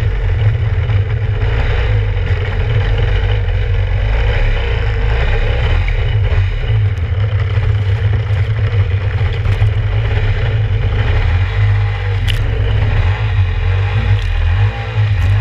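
Kawasaki 650SX stand-up jet ski's two-stroke twin-cylinder engine running under way, with a heavy low rumble and water splashing against the hull. A single sharp click about twelve seconds in.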